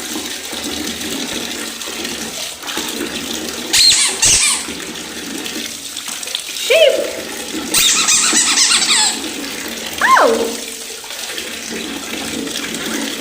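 Water running and splashing in a baby bath, with louder splashes now and then. A few short squeals that slide down in pitch come through over the water.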